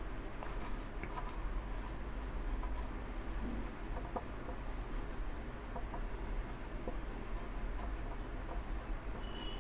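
Whiteboard marker writing on a whiteboard: faint, irregular scratchy strokes of the felt tip.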